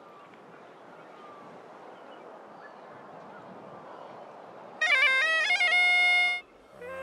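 Masak been (Himalayan bagpipe) sounding a short phrase about five seconds in: a few quick notes, then one held note that stops sharply after about a second and a half. Before it there is only a faint outdoor hiss.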